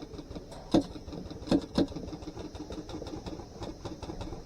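Airsoft gunfire: three sharp single shots, one about a second in and two close together about a second later, over a steady fast rattle.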